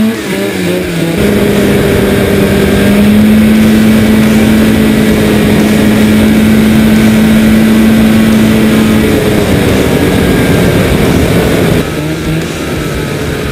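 A snowmobile engine swapped into a four-wheeler, revving up and then held at a steady high pitch in a full-throttle top-speed run. It eases off about nine seconds in and drops in loudness near the end.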